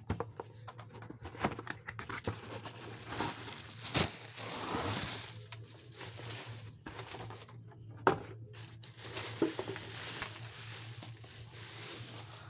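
Plastic packaging crinkling and rustling as a ring light and its cables are pulled out of a cardboard box and unwrapped, with scattered clicks and two sharp knocks, about four and eight seconds in.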